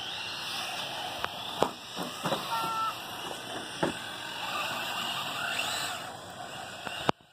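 Radio-controlled off-road cars running on a dirt track: steady motor and tyre noise whose whine rises and falls as a car speeds past, broken by several sharp knocks. The sound cuts off abruptly just before the end.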